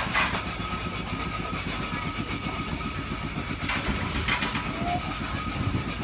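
Steady low rumble of outdoor market noise with a faint, steady high tone running through it, and a few brief clatters about four seconds in.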